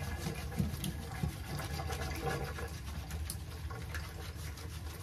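Hands scrubbing shampoo lather into a wet toy schnoodle puppy's coat: a steady wet rubbing with many small crackles.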